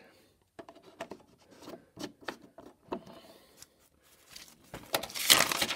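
Scattered light clicks and knocks of objects being handled and set down on a hard surface, then a louder scraping, rustling sound of about a second near the end.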